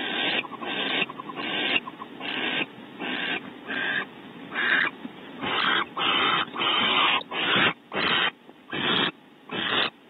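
Barn owl giving a rapid series of rasping hisses, about two a second. This is the hissing 'snore' call barn owls use when begging for food. The hisses grow longer and more spaced out in the second half.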